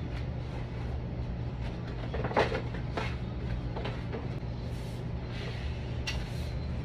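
Stiff cardboard cake box being folded into shape, with a few short creases, scrapes and flaps, the sharpest about two and a half seconds in, over a steady low machine hum.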